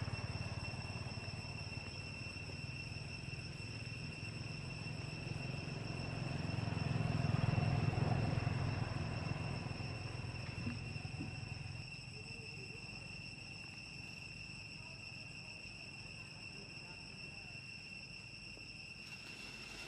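Insects droning in a steady, high-pitched whine. Under it is a low rumble that swells about seven or eight seconds in and drops away about twelve seconds in.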